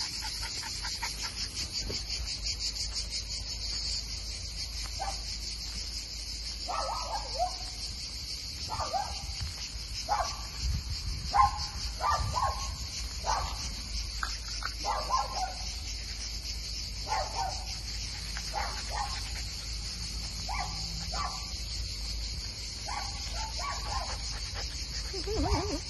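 Insects chirring steadily in a high, fast-pulsing drone, with a dog barking in the distance a dozen or so times, in short separate barks between about five and twenty-four seconds in.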